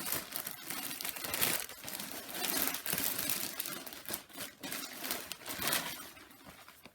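Plastic packaging crinkling and rustling in irregular handling strokes as a pair of jeans is taken out and handled, fading away near the end.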